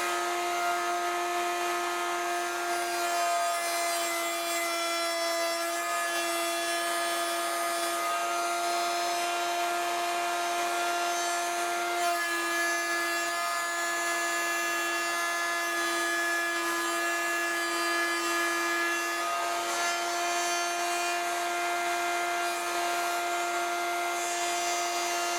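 Table-mounted router running steadily with a high whine while its bit cuts mortises into 2x4 stock; the pitch dips briefly a few times as the bit takes load.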